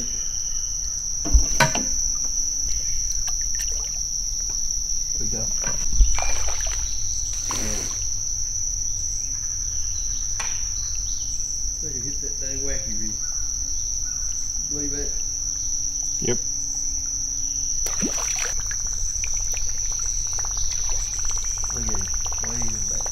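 Steady, high-pitched drone of an insect chorus, with a few sharp knocks in the first six seconds.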